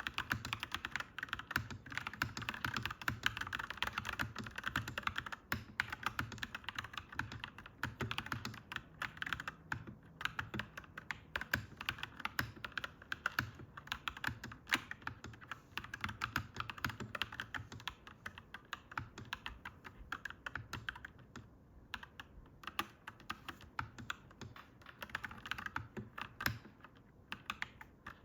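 Clacky mechanical keyboard being typed on in fast, continuous runs of keystrokes, with a brief pause a little after two-thirds of the way through.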